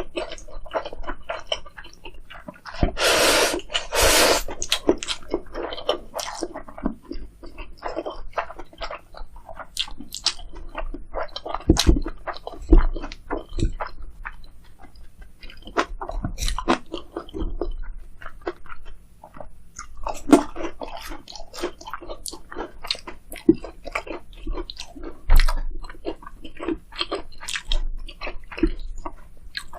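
Close-miked chewing and crunching of food, with many small wet mouth clicks and two louder bites about three and four seconds in.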